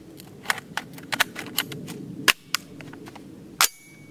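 A string of sharp gunshot-like cracks and clicks, the two loudest about two and a quarter and three and a half seconds in.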